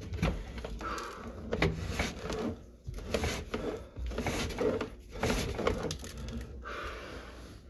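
Irregular knocking and clattering as a sewer camera's push cable is pulled back out of a drain line.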